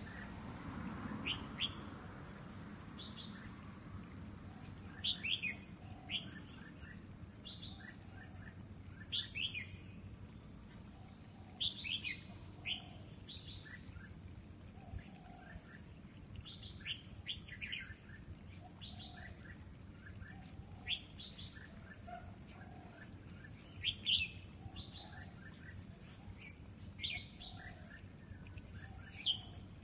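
Red-whiskered bulbuls calling: clusters of short, quick chirping notes repeated every second or two.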